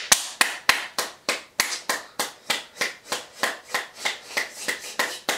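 A person clapping hands in a steady run of sharp claps, about three a second.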